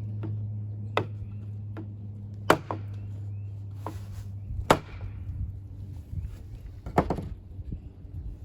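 Pocketknife blade shaving a stick of tulip poplar, with sharp wooden clicks as cuts finish: four loud ones a couple of seconds apart and lighter ones between.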